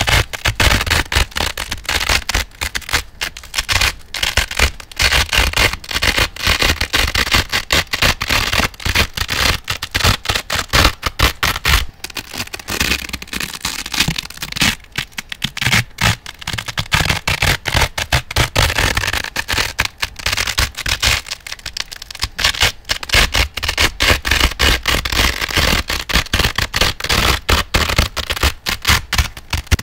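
Velcro hook-and-loop fastener being ripped and scratched over and over, close to the microphone: a dense, continuous crackling crunch.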